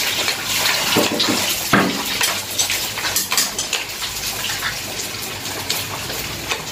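Hot oil sizzling and crackling in a wok over a gas flame as snakehead fish deep-fries, a steady hiss broken by many small pops.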